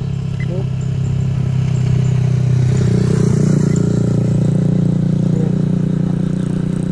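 Motorcycle engine running at a steady idle. A passing motorcycle adds to it, the engine sound growing louder about two seconds in and staying loud.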